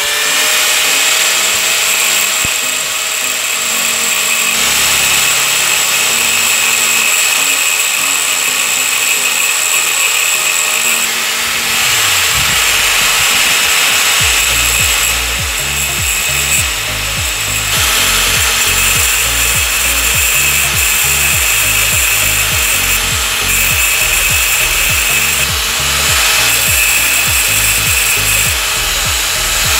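Handheld angle grinder with a thin cutting disc, running with a steady high whine that dips briefly a couple of times as it grinds down the rivet heads on a motorcycle clutch housing's cover plate.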